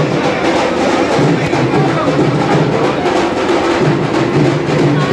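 Music with drums and percussion keeping a steady beat.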